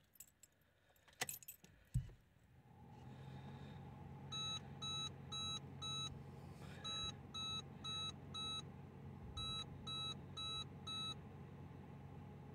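Keys jangling in the ignition and a knock about two seconds in, then a steady low hum as the ignition comes on. Over it, a Ford FG Falcon instrument cluster's warning chime beeps in three sets of four, about two beeps a second. It sounds with the BRAKE FAIL and DSC FAULT warnings, faults that appeared after a Haltech Elite Pro plug-in ECU was installed.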